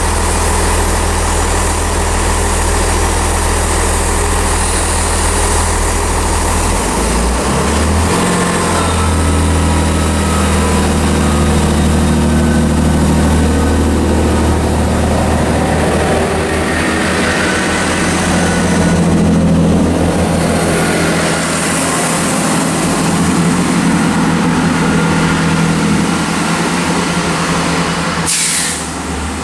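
Diesel multiple unit's underfloor diesel engines running, a steady loud drone whose low note shifts about a quarter of the way in. A brief sharp click comes near the end.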